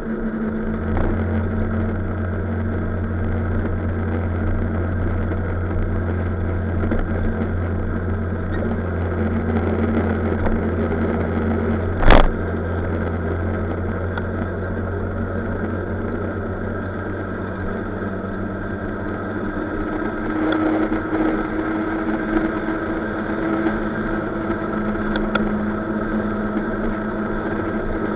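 Motor scooter engine running steadily at highway cruising speed, a constant drone under wind and road noise. A single sharp knock about halfway through.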